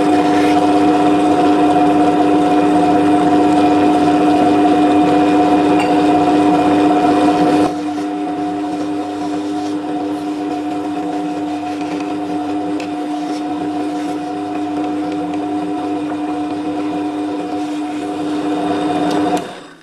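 Countertop stone wet grinder (Meenakshi and Meenakshi MM10) running, its motor-driven drum turning against the stone rollers as it grinds coconut chutney with water: a steady hum with two held tones. It drops in level about eight seconds in and cuts off suddenly near the end.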